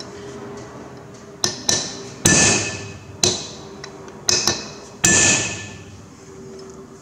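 Hammer striking a steel punch to drive the rear axle bearing out of a Massey Ferguson 135 axle housing: about seven metallic blows over some four seconds, two of them heavier with a ringing tail.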